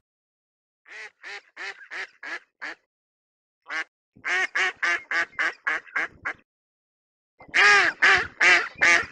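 Waterfowl quacking: three runs of short, harsh calls, about three or four a second, with pauses between the runs. The last run is the loudest.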